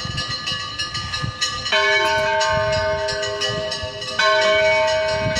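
Church bell tolling: two strikes about two and a half seconds apart, each ringing on and slowly fading.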